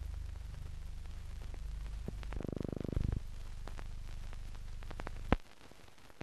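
Background noise of a silent newsreel's soundtrack: a steady low hum with scattered crackles and clicks, a short buzz a little over two seconds in, and a sharp pop about five seconds in, after which the hum drops away.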